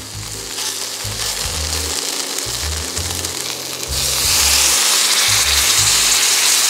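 Tsumire balls sizzling in a cast-iron skillet. About four seconds in, the sizzle jumps louder and hissier as a pouch of retort stew sauce is poured over them onto the hot pan.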